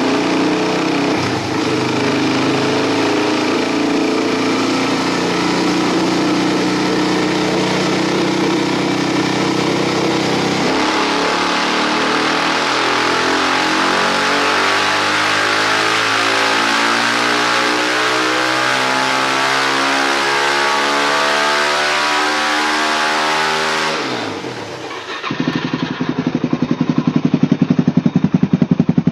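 Suzuki DR-Z400SM single-cylinder four-stroke on a chassis dyno through an Akrapovic slip-on exhaust: running at steady revs, then from about ten seconds in climbing slowly and steadily in a long pull under load, dropping off near the end. After a cut, a DR-Z400 with a Pro Circuit T4 exhaust runs with a rapid, even pulsing beat.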